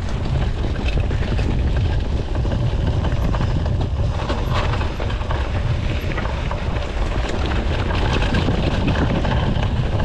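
Mountain bike descending a loose, stony dirt trail: wind buffeting the chest-mounted action camera's microphone in a steady low rumble, with a constant run of rattles and clicks from the bike and its tyres over the stones.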